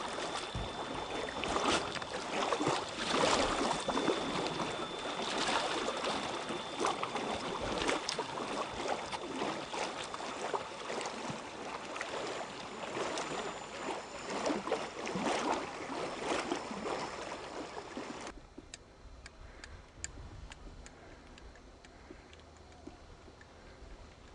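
Kayak paddles working the lake water, an irregular splashing and dripping from the strokes. About 18 seconds in it cuts off suddenly, leaving only faint lapping and trickling.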